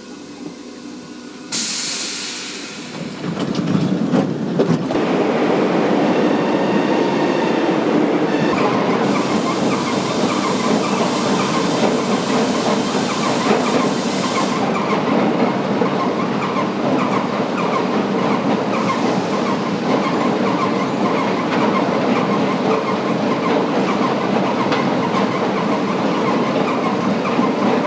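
A train running on rails: a short burst of hiss about two seconds in, then a steady rumble and clatter of wheels on the track.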